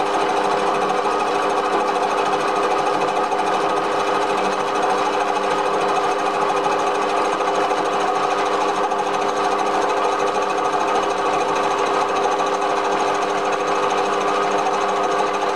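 Small bench lathe running steadily, its spindle and gear train giving a constant whine, while it takes a slow-feed finishing cut across the face of a steam-cylinder cover casting.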